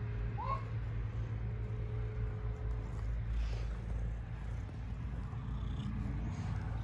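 A domestic cat's brief rising chirp-like call about half a second in, over a steady low rumble.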